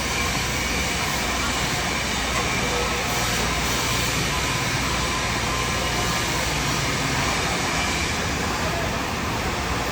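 Steady hiss of a TIG (argon) welding arc over a low electrical hum, during a root pass on a steel pipe joint.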